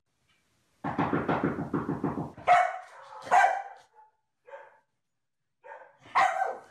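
Large corded-coat dog (Komondor) barking: a low, rapidly pulsing sound for about a second and a half, then several sharp barks, the loudest two about a second apart and another near the end.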